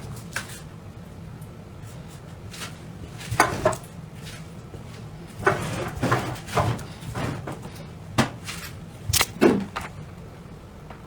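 Irregular knocks and short scrapes, a few in quick clusters, typical of a knife and vegetables being worked on a cutting board, over a low steady hum.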